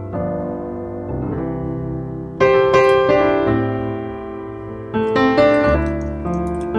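Background piano music: a slow tune of sustained chords and single notes, with a louder chord struck about two and a half seconds in and another near five seconds.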